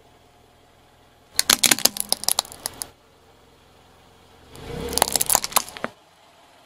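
Hard plastic baby toy ball and rattle cracking and crunching as a car tyre rolls over it, in two bursts of sharp cracks, one about a second and a half in and one about five seconds in, the second with a low rumble under it.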